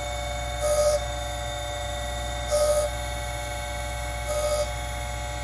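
Surface grinder running with a steady motor hum, its wheel grinding a straight cutting edge onto a tool bit in three short gritty bursts about two seconds apart.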